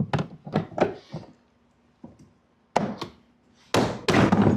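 Sharp hard-plastic clicks and knocks as the Sea-Doo's speaker pod is worked loose from its fairing, ending in a louder, longer clatter near the end as it comes free.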